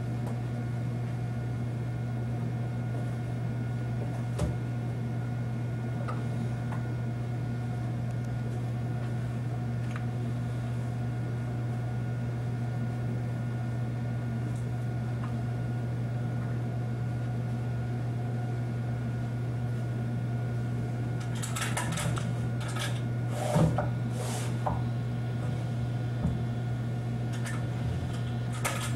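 Steady low mechanical hum with a few fainter higher tones, unchanging throughout. A short cluster of clicks and knocks comes about three-quarters of the way through, with one more click near the end.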